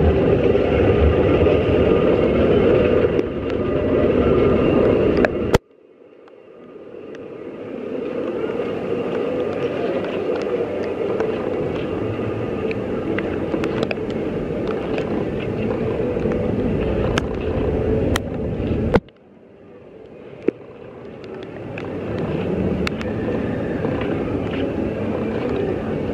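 Steady rain with sharp ticks of drops striking the camera and its microphone. Twice the sound drops away suddenly after a sharp tap and swells back over the next few seconds.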